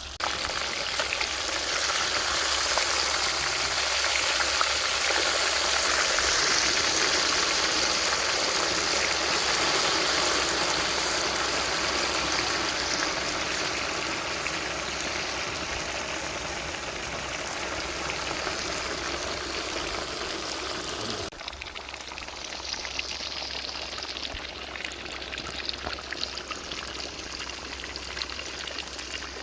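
A large whole parrot fish deep-frying in groundnut oil, giving a steady sizzling hiss. About two-thirds of the way through it drops suddenly to a quieter sizzle with scattered crackles.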